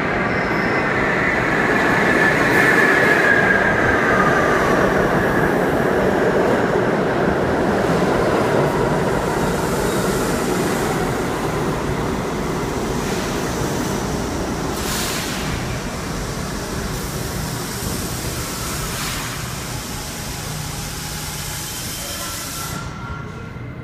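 R68 subway train pulling into an underground station and braking to a stop. Wheel and running noise with a falling whine over the first few seconds as it slows, then easing off gradually as the train comes to rest.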